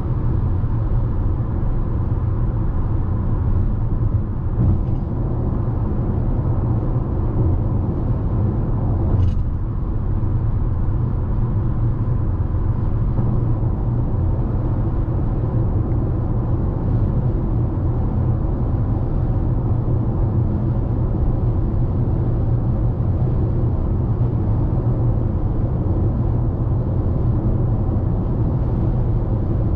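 Steady road and tyre noise with a low rumble inside the cabin of a 2021 Toyota RAV4 XLE Premium cruising at highway speed. A single short click sounds about nine seconds in.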